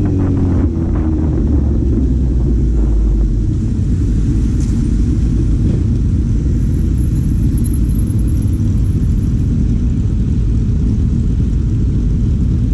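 Four-cylinder vehicle engine running while under way, a steady low rumble; its pitch falls in the first second.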